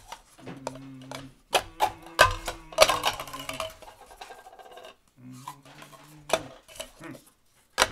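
Small plastic cups clacking and tapping on a tabletop as they are picked up, flipped and set down in quick irregular knocks. A held low hummed note comes and goes between the knocks.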